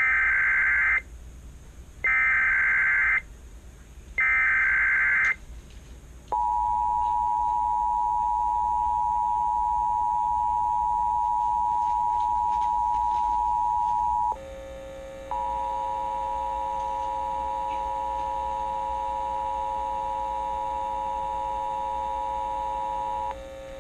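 Emergency Alert System tones: three short bursts of the screechy digital SAME header data about a second apart, then the two-tone EAS attention signal sounding steadily for about eight seconds. After a brief dip the attention signal sounds for about eight seconds more, over a lower steady tone and a buzz.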